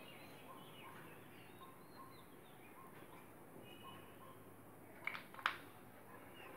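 Faint birds chirping now and then in the background, with two short sharp clicks about five seconds in.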